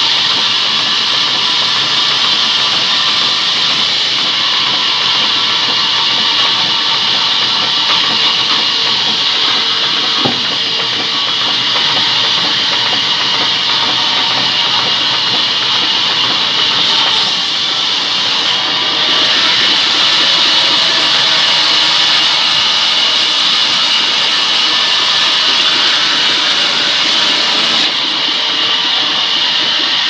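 Sawmill band saw running and cutting through rain tree wood, a loud, steady hissing machine noise.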